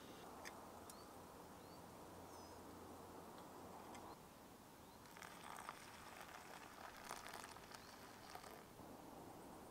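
Canister gas stove burning with a faint steady hiss that is shut off about four seconds in. A few short bird chirps come in the first couple of seconds. In the second half a cloth and a plastic food pouch rustle and crinkle as the hot pot is handled.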